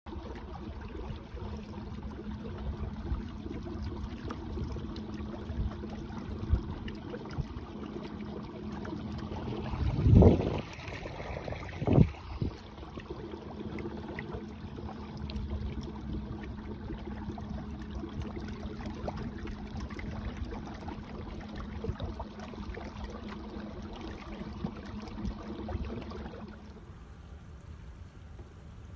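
Electric trolling motor humming steadily as it drives a canoe, over a hiss of water and wind. Two loud thumps come about ten and twelve seconds in, and the hum stops near the end.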